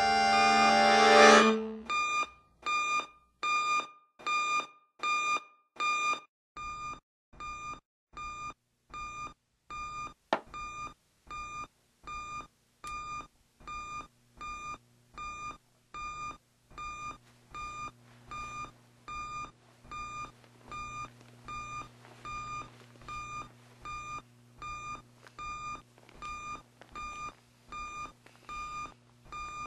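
Digital alarm clock beeping steadily, about one and a half beeps a second. The beeps grow quieter about six seconds in, and a single click comes at about ten seconds.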